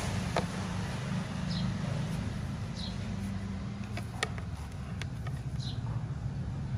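A steady low mechanical rumble, with a few faint high chirps and light clicks as the power cord and plug are handled.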